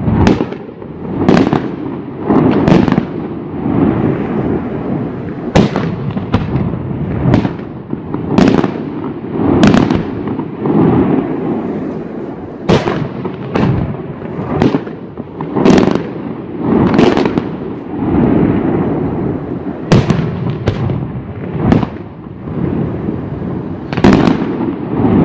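Aerial firework shells bursting in steady succession: sharp bangs about once a second at uneven spacing, with a low rolling rumble filling the gaps between them.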